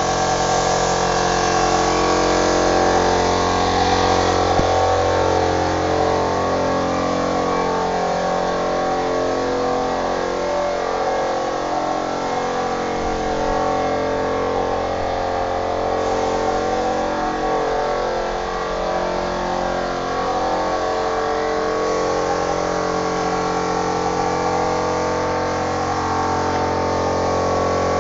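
A machine running steadily, a constant hum of several steady tones with a slow beat.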